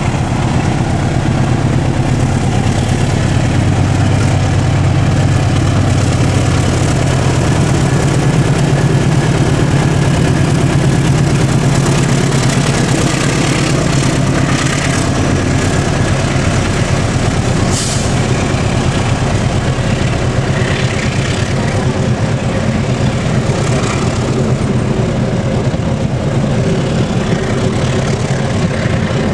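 KAI diesel locomotive passing close by with a steady engine drone, followed by its passenger coaches rolling past on the rails. The engine sound is strongest in roughly the first half and eases off as the coaches go by.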